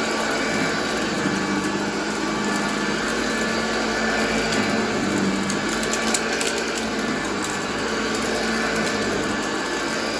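Vintage Hoover Junior upright vacuum cleaner running steadily while pushed back and forth over a shag rug, sucking up sawdust: a constant motor hum and airflow with a few faint ticks.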